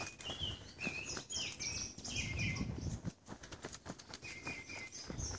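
A songbird singing runs of short, high chirping notes, one run in the first half and another near the end, over a hiker's footsteps on a dirt trail.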